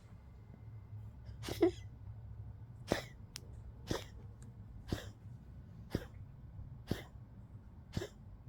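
Old Poodle coughing in a string of short, sharp hacks, about one a second, seven in all; the first is the longest and loudest. The owner puts the cough down to a collapsing trachea and old age.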